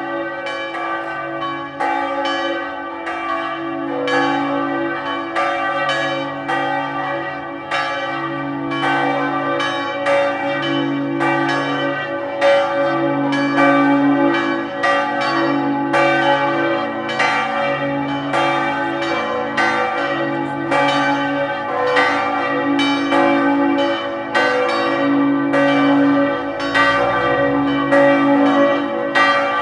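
Several church bells of a bell tower ringing together in a continuous peal. Strikes fall roughly once a second and overlap, each leaving a long ringing tone over a low hum.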